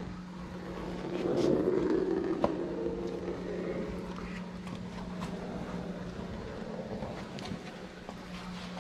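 Vinyl wrap film being handled and cut with a hand-pulled knifeless tape filament: faint rustling and scattered light clicks, louder for a couple of seconds about a second in, over a steady low hum.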